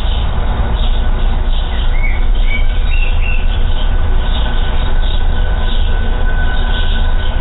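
A loud, steady low rumble with thin, steady high tones above it. A few short rising bird chirps come about two to three seconds in.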